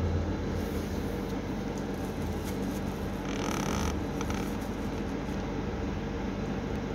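Steady low rumbling background noise. About three seconds in comes a short scraping rustle as a knife slices through a peeled salted egg on a plate, handled with a plastic glove.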